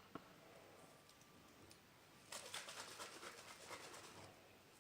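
Mostly near silence, with about two seconds of faint, rapid crackling clicks in the middle.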